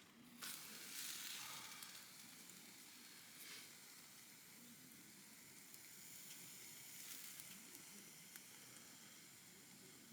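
Food sizzling on a hot pan or grill, the hiss starting suddenly about half a second in as food goes on, then settling to a steadier sizzle with a couple of brief swells.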